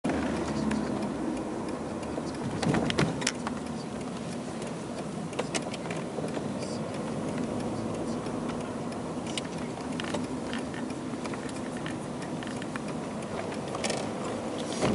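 Taxi cabin noise on the move: the steady low rumble of engine and tyres on the road, with scattered sharp clicks and knocks, a cluster of them about three seconds in.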